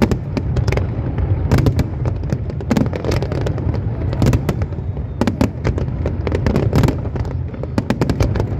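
Aerial fireworks display going off in a dense barrage: a constant low rumble of shell bursts under many sharp bangs and crackles, several a second.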